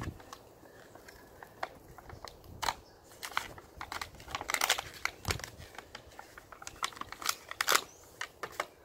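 Plastic bag and paper packaging crinkling in the hands as new mower parts are unwrapped: irregular crackles, with louder bursts about halfway through and again near the end.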